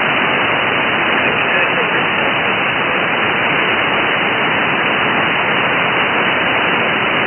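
Steady hiss of band noise from a shortwave receiver tuned to 7.200 MHz lower sideband, heard in the gap between transmissions when no station is on the air.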